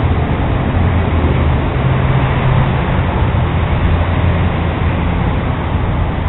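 Steady low engine hum over an even wash of road traffic noise, with no breaks.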